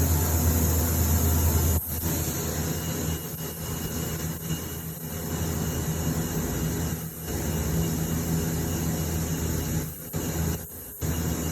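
TIG welder's electric arc burning in a graphite crucible furnace: a steady buzzing hum with hiss. The sound drops out briefly a few times, as the arc breaks and restrikes.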